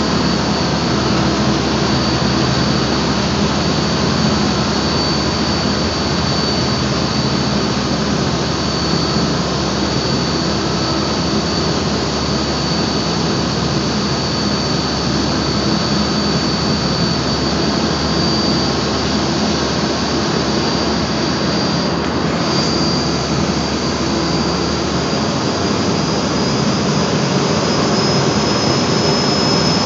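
Aluminum seine skiff's engine running steadily under heavy load against a tow line, its propulsion churning the water, with a constant high whine over the engine and water noise.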